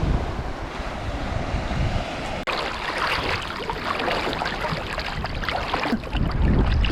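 Surf washing onto a beach, with wind buffeting the microphone. About two and a half seconds in, the sound changes abruptly to a brighter hiss of foam, full of small crackles.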